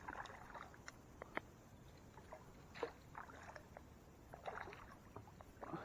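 Faint water splashes and small knocks around a small fishing boat, coming every second or so over quiet hiss.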